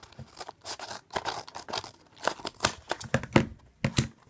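Small cardboard blind box being torn open by hand: a quick, irregular string of rips, scrapes and crinkles of cardboard, busiest and loudest in the second half.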